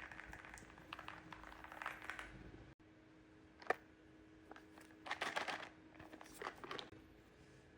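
Key presses on a mechanical keyboard fitted with Outemu Silent Peach V3 silent switches: soft, muted taps in short bursts, with one sharper click just under four seconds in.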